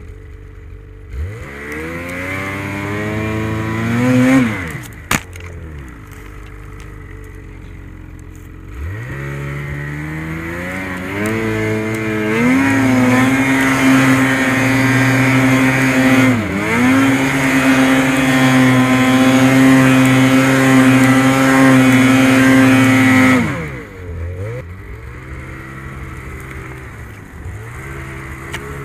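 Ski-Doo snowmobile engine pushing through deep powder. The revs climb and fall off, rise again, then hold high for about ten seconds with one brief dip before dropping back to a low run near the end. A single sharp knock comes about five seconds in.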